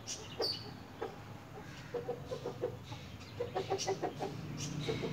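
Chicken clucking in short repeated calls: a few clucks about two seconds in, then a quicker run of them a little later.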